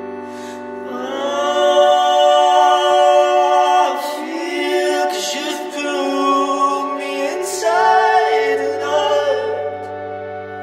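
Music: a vocal line of long held, wordless-sounding notes over sustained drone-like chords, swelling louder about two seconds in and again near eight seconds.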